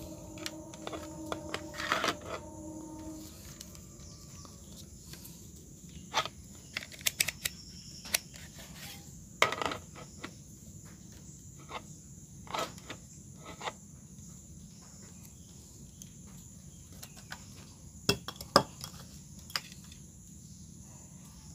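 Scattered, irregular small clicks and taps as a digital multimeter is handled over a CRT TV's circuit board: its rotary dial is turned and its test probes are set against the solder joints. A steady tone sounds for the first three seconds.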